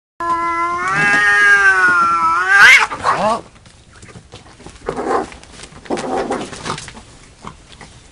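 Two domestic cats caterwauling in a standoff: one long, wavering yowl lasting about two and a half seconds that rises into a loud scream, then two shorter, rougher yowls about five and six seconds in.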